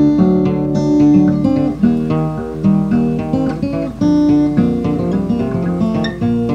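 Background music: an acoustic guitar playing a quick run of plucked notes with a moving bass line.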